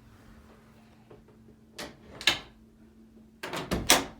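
A prehung interior door's latch clicks twice about two seconds in. Near the end the door clatters as it is undone and springs open, a sign that the hinge side is bound too tight.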